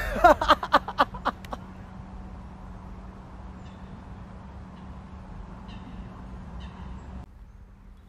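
A quick run of short, sharp pitched cries in the first second and a half, then a steady background hiss with a low hum and a few faint high chirps.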